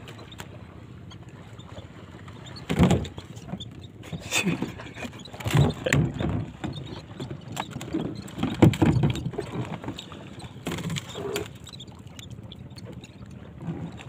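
Irregular knocks and thumps on a small boat's hull, about half a dozen, with the loudest about three seconds in and again near nine seconds, over a steady wash of water and wind.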